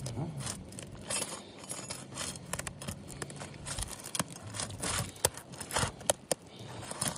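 Asphalt shingle's sealant strip being gently pried loose, giving irregular crackling, tearing and scraping clicks.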